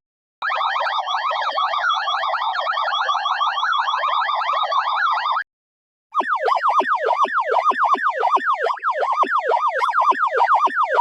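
Synthesized sci-fi alien alarm. It begins as a fast, shrill warbling siren lasting about five seconds, breaks off briefly, then returns as a different pattern of quick downward pitch swoops, about three a second.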